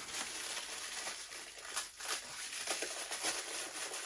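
Faint crinkling and rustling of a mini figure's packaging as it is handled, in light irregular bursts over a steady hiss.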